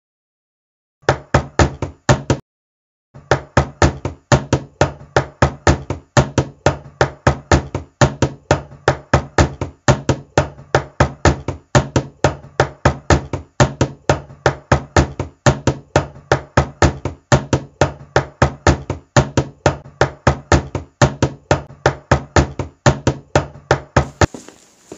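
Steady rhythmic knocking, about four sharp strikes a second, with a short break near the start, stopping abruptly just before the end.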